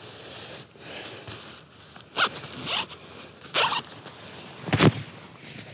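A zip being pulled in about four quick strokes, with a dull thump on the last one near the end.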